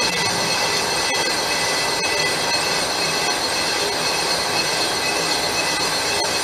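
Metal lathe turning a vented cast-iron Porsche Boxster brake rotor while the cutting tool takes a light skim pass across its face: a steady metallic screech with several high tones held throughout.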